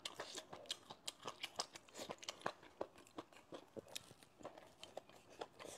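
A person chewing a mouthful of stir-fried velvet antler mushrooms with rice: a quiet, irregular run of small crunches and wet mouth clicks, several a second.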